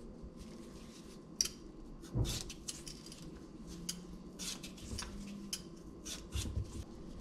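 Raw potato being peeled with a handheld vegetable peeler: a series of a dozen or so short scraping strokes of the blade along the skin. A single light knock about a second and a half in.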